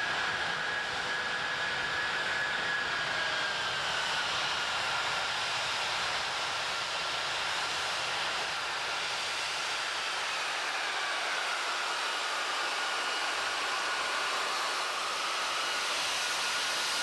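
Antonov airplane's engines running at full thrust: a steady rushing hiss with a high whine that slides down in pitch a couple of times.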